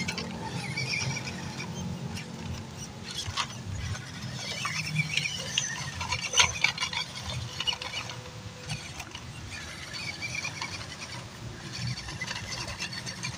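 Small electric RC crawler pickup (WPL C24) crawling up a dirt slope: a squeaky, high-pitched motor and gear whine coming and going with the throttle, over the crunch of tyres on dirt and pebbles, with a sharp click a little past the middle.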